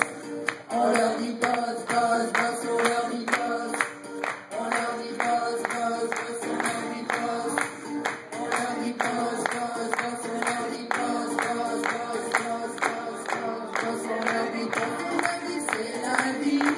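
A group of women singing a French song together into microphones, over a steady beat of about three strokes a second.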